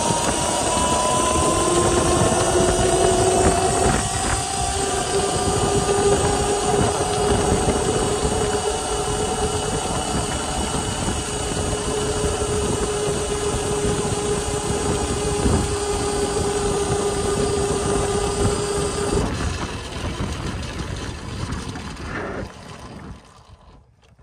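Volcon Grunt electric motorcycle riding at speed: wind and tyre rush under a thin electric-motor whine that rises in pitch over the first few seconds, then holds steady. The whine cuts out about three-quarters of the way through, and the rush dies away as the bike slows to a stop near the end.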